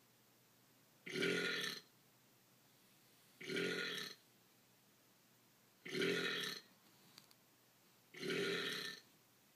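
A man's burp played back as a repeating sample, sounding four times at an even pace of about one every two and a half seconds, each burp near-identical and lasting under a second.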